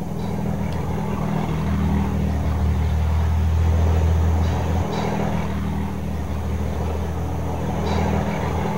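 Steady drone of a small propeller plane's engine flying low overhead, growing louder toward the middle and then easing off a little.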